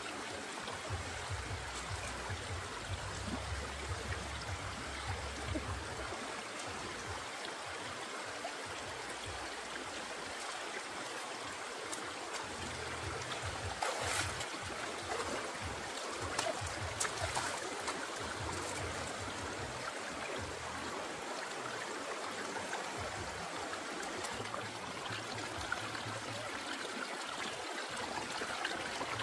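Shallow stream running and trickling over rocks, with a few hand splashes in the water about halfway through.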